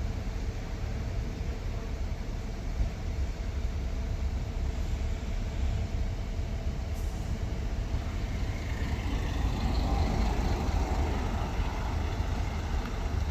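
City street traffic: a steady low rumble of vehicles, with a passing vehicle growing louder from about eight seconds in.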